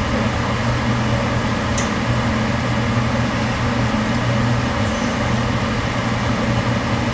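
Steady electric hum of a running household appliance or fan motor, unchanging throughout.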